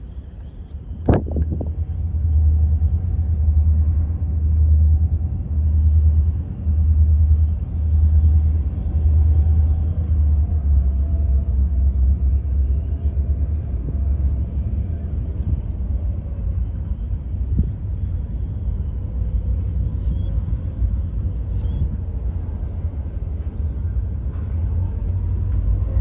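Low rumble of a BNSF double-stack intermodal freight train and its diesel locomotives, pulsing at a slow, even beat for about the first ten seconds and then steady, with a sharp click about a second in.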